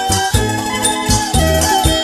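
Music with a steady drum beat, about two to three strokes a second, under a held, slightly wavering melody line.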